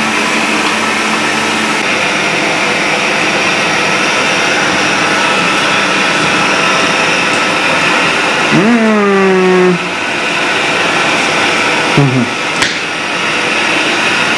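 Vacuum cleaner running steadily at high power. A short vocal sound rises and holds about nine seconds in, with another brief one around twelve seconds.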